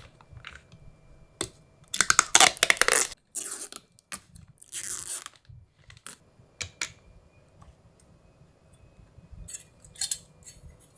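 Handling noise from working on computer hardware: scattered sharp clicks and a few loud bursts of rustling and crunching, the loudest about two seconds in.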